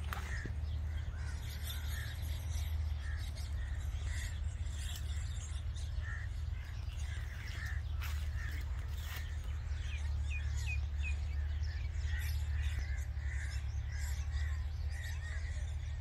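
Baby myna birds making repeated short calls, with a few quick high chirps about ten seconds in, over a steady low hum.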